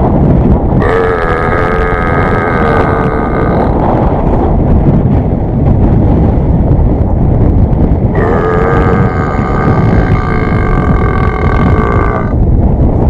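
Two long, drawn-out human burps, each about three to four seconds, the pitch wavering at the start and then held. Heavy wind rumble on the microphone throughout.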